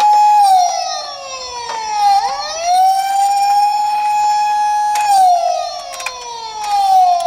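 Emergency vehicle siren wailing: a held tone slides down, swoops back up about two and a half seconds in, holds, and slides down again near the end. A few sharp clicks sound over it.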